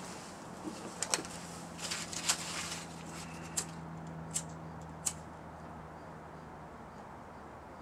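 Dry twigs and leaves rustling, snapping and scraping as they are packed by hand into a homemade metal wood stove made from a semi-truck oil filter: a scatter of sharp crackles and clicks in the first five seconds, over a low steady hum.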